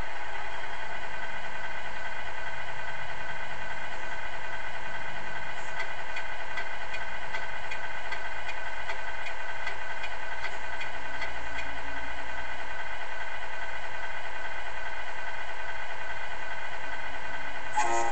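Tamiya Scania R620 RC truck's built-in sound unit playing a V8 engine idling through the model's small speaker, a steady, even drone. A short burst of another sound comes near the end.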